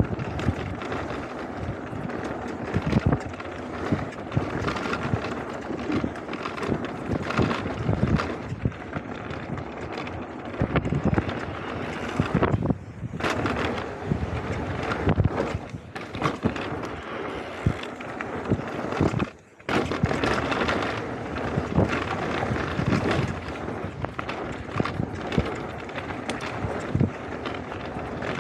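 Electric mountain bike riding fast down a rough gravel trail: tyres rattling over loose stones and the bike clattering over bumps, with wind buffeting the microphone. The noise drops out briefly once, about two-thirds of the way through.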